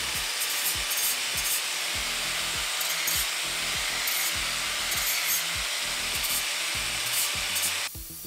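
Angle grinder running with its disc against steel: a steady, harsh grinding noise that cuts off suddenly near the end.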